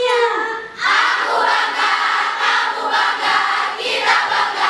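A large group of young people shouting together in unison and cheering. The voices break off briefly about a second in, then a louder group shout carries on.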